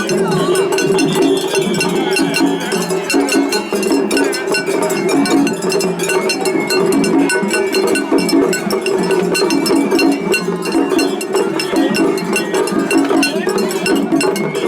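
Japanese festival hayashi music: a hand gong (atarigane) struck in a rapid, continuous clanging rhythm over a dense ensemble.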